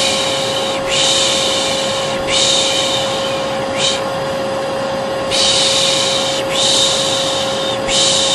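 Hair dryer running with a steady hum, while a person shushes "shh" over it about six times, mostly long strokes of about a second with one short one, a rhythmic white-noise lull for a colicky baby.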